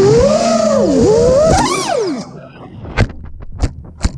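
Electric motors of a 5-inch FPV freestyle quadcopter whining, heard from its onboard camera, the pitch swinging up and down with the throttle. About a second and a half in the pitch climbs, then falls away as the quad goes down. A run of sharp knocks follows as it tumbles into the grass.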